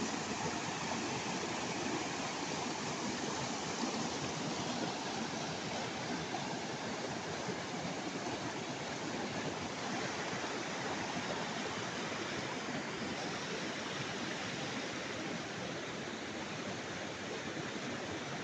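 Fast mountain river rushing over rocks and rapids, a steady whitewater roar without a break. It grows a little fainter in the second half.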